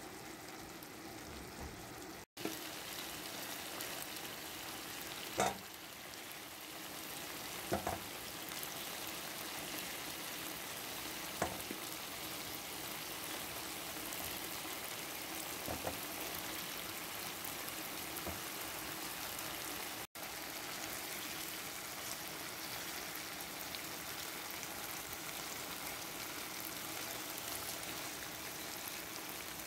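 Chicken pieces frying in hot oil in a pan, a steady sizzle, with a few sharp clicks in the first half. The sound cuts out for an instant twice.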